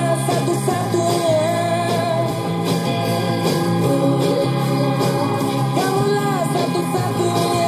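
A song with singing, played back from a cassette tape through a Sony portable radio-cassette recorder's speaker.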